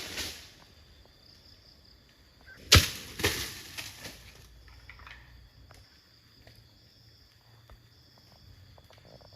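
A sharp, loud crash about three seconds in, followed by a second hit about half a second later and rustling that dies away over about a second, with a brief swish at the start.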